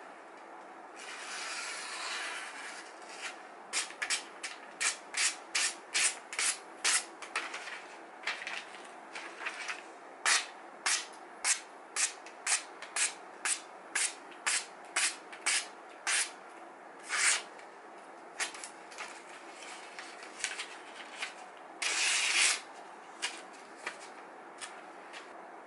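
A freshly sharpened D2 steel knife blade slicing through a sheet of catalogue paper, testing the edge. It makes a quick run of short, crisp hissing cuts at about two a second, with a longer paper rustle near the start and another near the end.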